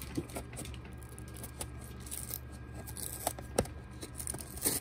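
Fingers working open a small cardboard blind box: scattered light clicks and rustles of card being handled, with a sharper click about three and a half seconds in and a quick run of clicks near the end.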